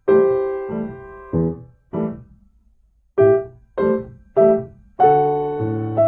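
Solo piano music: slow single notes and chords, each struck and left to ring out, with a short pause near the middle and fuller chords toward the end.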